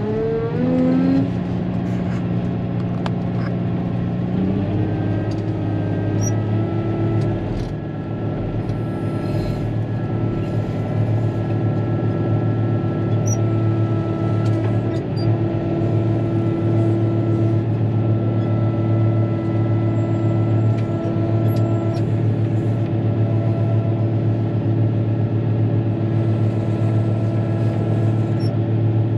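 Caterpillar motor grader's diesel engine heard from inside the cab. It revs up in the first second, shifts about four seconds in, then runs steadily under load, with occasional light clicks and rattles.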